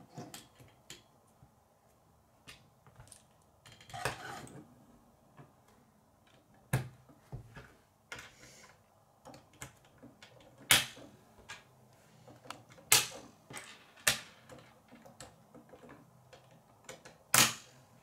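Plastic K'nex rods and connectors clicking as they are snapped together and set down on a wooden tabletop: scattered sharp clicks and taps, a handful of them much louder, with a short stretch of plastic rattling and rubbing about four seconds in.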